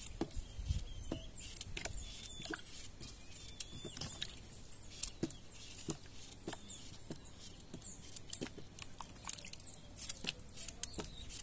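Knife cutting raw pumpkin into cubes in the hand, with the pieces dropping into water in a stainless steel bowl: irregular small clicks, cuts and plops.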